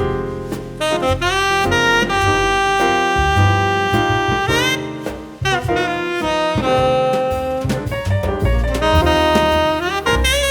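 Jazz background music with a saxophone playing the melody over bass and drums.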